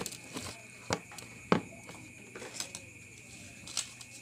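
Kitchen handling while seasoning raw pork spareribs: a few scattered sharp taps and clicks, the loudest about a second and a half in.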